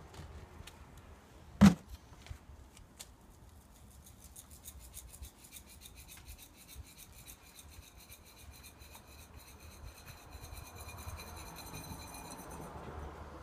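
A sharp knock of a small scoop against a plastic coffee can, then a fast, even run of faint rasping ticks, several a second, as granular lime is shaken out of the scoop over raised-bed soil.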